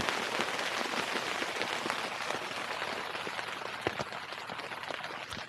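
Rain and hail striking the canvas of a tipi tent, heard from inside as a dense, steady patter of many small hits that eases slightly toward the end.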